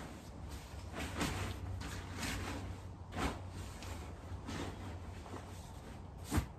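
Deflated inflatable paint booth's fabric and clear plastic panels rustling and crinkling as it is rolled up and pressed down on a tarp, in swishes about once a second, with a sharper thump near the end.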